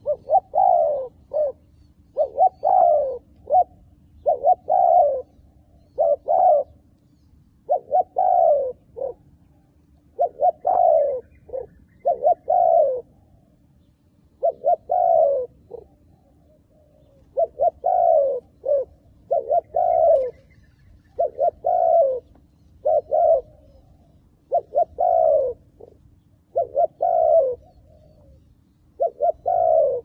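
Spotted dove cooing over and over in short groups of two or three low coos, each group a second or two apart: a decoy dove's call for luring wild doves.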